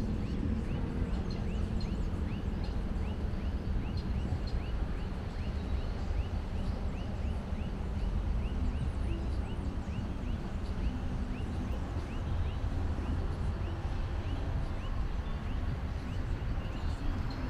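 A steady low rumble, with a small animal repeating a short falling chirp about twice a second.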